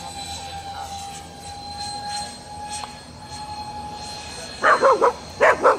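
Electric ducted fans of a radio-controlled Freewing Su-35S model jet whining steadily in flight under power. About four and a half seconds in, a dog barks four times, louder than the jet.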